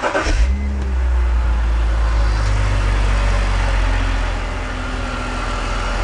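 BMW E46's inline-six engine catches at the end of a starter crank and settles into a steady idle. It runs without the misfire the owner was trying to reproduce.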